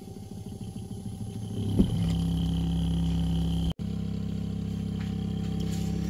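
Small 12 V DC refrigeration compressor (ZH15G) of a portable car fridge running. Its hum builds over the first two seconds, with one knock near two seconds in, then it runs steadily. The sound cuts out for an instant just before four seconds in, then the same steady hum carries on.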